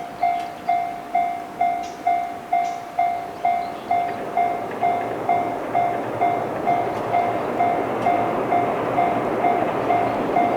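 Japanese railway level-crossing warning bell ringing its steady 'kan-kan', one clang about every half second. From about four seconds in, the rushing noise of an approaching train builds up under it and stays loud.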